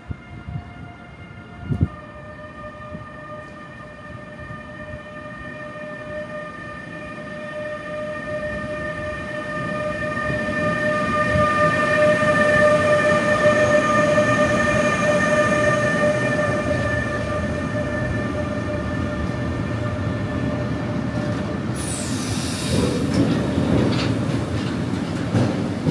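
Freight train passing, its locomotive giving a steady whine of several evenly spaced tones over rolling wheel noise; the whole sound swells to a peak about halfway and then holds. A few seconds before the end a sharp high hiss cuts in, followed by a few knocks from the wheels.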